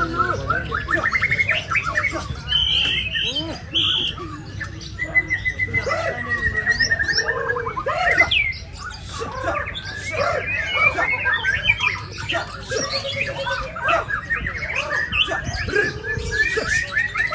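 Several white-rumped shamas singing at once: overlapping whistles, chirps, rapid trills and harsh calls, with one long trill about five seconds in, over a steady low hum.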